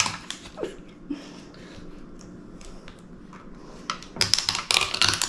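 Quiet room tone with a few faint clicks, then about four seconds in a quick run of crinkling and clicking as the plastic lid is pulled off a sour cream tub.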